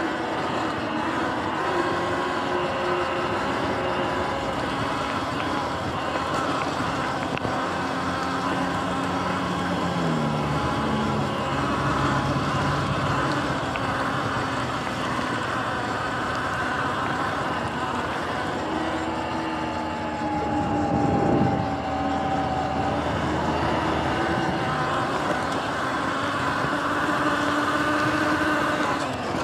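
Sur-Ron electric dirt bike ridden fast over grass: its motor whines faintly, its pitch shifting with speed, under a steady rushing noise. There is a brief thump about two-thirds of the way through.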